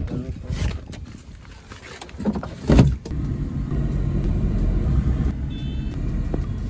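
A couple of thumps, then the steady low rumble of a small car driving on a city road, heard from inside the cabin. A brief faint high beep sounds about halfway through the driving.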